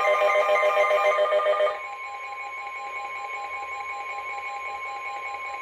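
Emergency alert tones before a severe thunderstorm warning: a loud, pulsing electronic alarm of several tones that, about a second and a half in, gives way to a quieter steady single tone near 1 kHz, the NOAA Weather Radio warning alarm tone, with fainter beeps behind it. The tone signals that a warning message is about to be broadcast.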